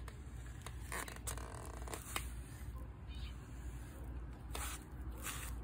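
A handheld pet brush raking through a cat's fur in short scratchy strokes, a quick run of them about a second in and two more near the end.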